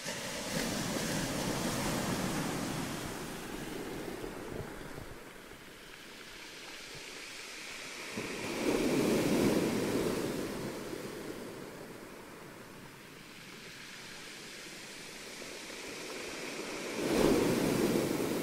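Ocean surf: waves wash in and recede, the rushing swelling and fading three times, roughly eight seconds apart.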